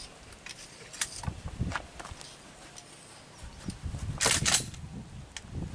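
Scattered small clicks and taps of equipment being handled on a pickup's tailgate as a tranquilliser dart is prepared, with a short, louder rustling clatter about four seconds in.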